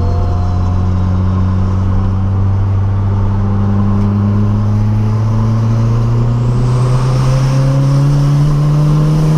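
Turbocharged VW Gol four-cylinder engine heard from inside the cabin, pulling in one gear with its revs climbing slowly and evenly. A faint high whine rises along with it; the owner puts the car's noise down to a gearbox that is failing.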